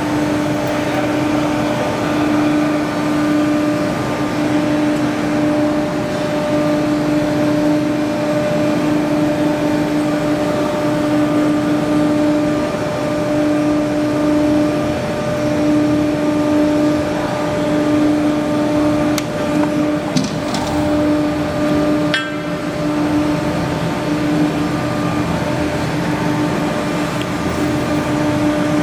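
CNC tube bending machine running with a steady, slightly pulsing hum, and a few short clicks about two-thirds of the way through.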